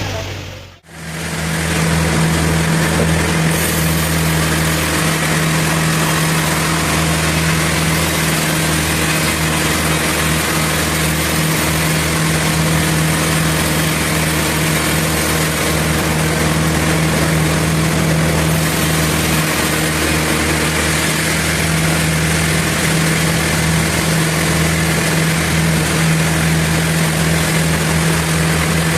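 Sawmill machinery running steadily: an engine-like hum at a constant low pitch under an even mechanical noise. It cuts out briefly just under a second in, then resumes unchanged.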